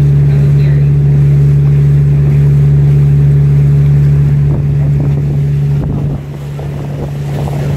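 Tour boat's engine running with a steady low drone under wind buffeting the microphone; the drone gets quieter about six seconds in.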